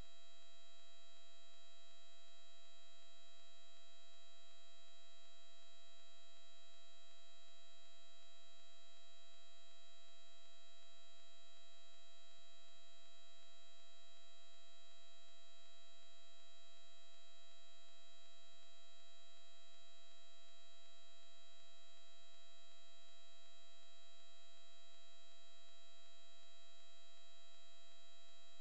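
Steady electrical hum made of several constant high-pitched tones over a faint hiss; the crash itself is not heard.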